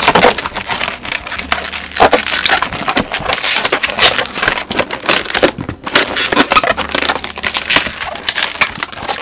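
Latex balloons, 160 modelling-balloon bubbles on a 6-inch heart balloon, being squeezed, twisted and rubbed by hand: a dense, irregular run of loud latex rubbing and squeaking.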